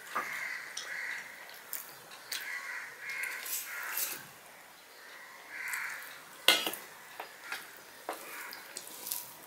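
Steel plate and bowl clinking and scraping while rice and vegetables are eaten by hand and greens are tipped from the bowl onto the plate, with one sharp clink past the middle the loudest. Short cawing calls sound a few times in the background.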